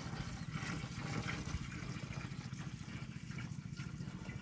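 Water poured in a steady stream from a metal pot through a funnel into a plastic backpack sprayer tank, filling the tank.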